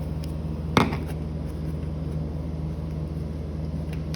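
Small flathead screwdriver working a screw out of a wall switch plate: one sharp click about a second in, over a steady low hum.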